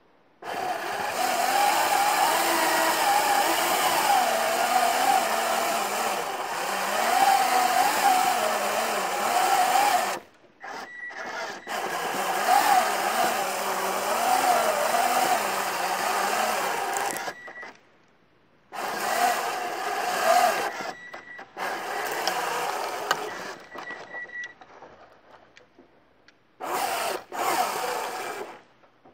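Small Lego electric motors and their gearing whirring as a remote-controlled Lego Technic off-road car drives. The whine wavers up and down in pitch with motor speed, and it stops and restarts several times.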